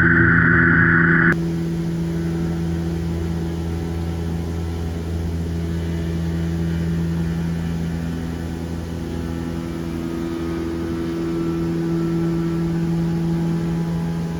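CNC milling machine cutting a steel part: a loud, high whine cuts off suddenly about a second in. The mill's steady hum runs on after it.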